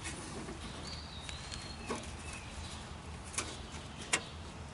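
A few light clicks and taps as the solenoid and its wiring are worked into place. A faint, high, thin whistle, likely a bird calling, sounds for about a second just after the start.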